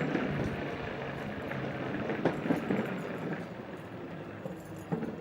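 Electric one-wheel board rolling along a park path: a steady rumble of motor and tyre noise, with a couple of sharp knocks.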